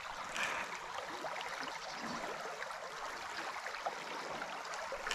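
Shallow trout river running: a steady rush of water, with a few faint small splashes and clicks.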